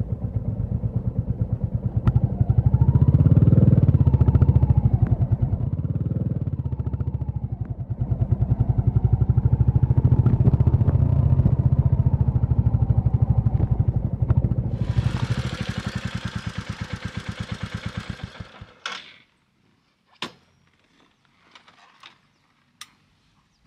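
Royal Enfield Classic 350 single-cylinder engine thumping as the motorcycle rides up a dirt track, with its revs rising and falling twice. A rushing hiss comes as it slows. The engine cuts off suddenly about three-quarters of the way through, leaving a few small knocks and clicks.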